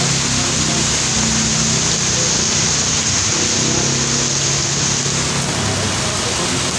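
Heavy rain pouring steadily, a dense even hiss of rain falling on pavement, with a low steady hum underneath.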